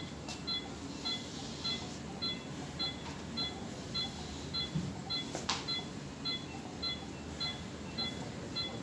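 ICU ventilator beeping during its oxygen sensor calibration: a regular run of short, high electronic beeps. A single click comes about five and a half seconds in.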